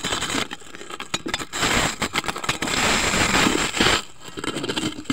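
Handling noise from a phone being set down and adjusted on rocks: crackling, scraping rubs on the microphone in irregular bursts.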